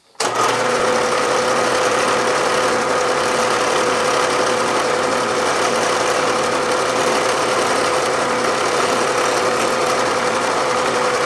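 Machine spindle running with a 1/8 inch twist drill boring through two pieces of 5/8 inch metal round stock: a steady whirr with one constant mid-pitched hum. It starts abruptly just after the start and cuts off sharply at the end.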